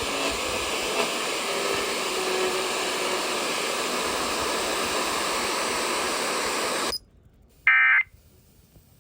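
Steady static hiss from a NOAA Weather Radio broadcast. About seven seconds in it cuts off to near silence, and one short, loud warbling data burst sounds: an EAS digital end-of-message header.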